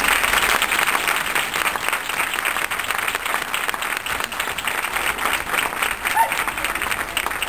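Audience applauding: many hands clapping in a dense, even patter, with a brief call rising over it about six seconds in.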